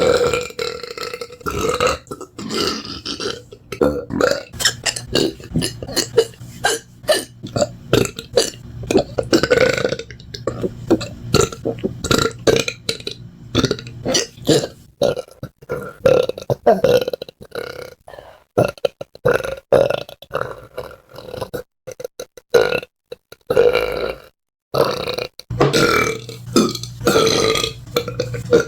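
A person burping over and over: a long run of loud belches, short and drawn-out, with abrupt breaks between them.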